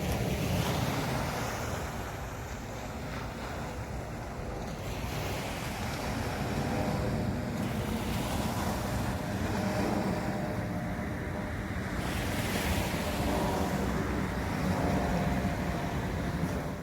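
Sea waves breaking and washing up on a sandy beach in a steady surf, with a wash that swells about three times: at the start, about five seconds in and about twelve seconds in.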